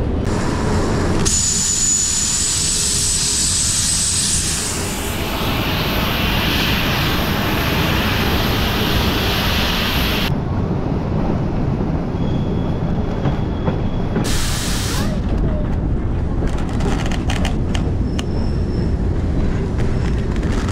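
Steam train running with a steady rumble. A loud hiss lasts from about a second in to about halfway through, and scattered clicks come near the end.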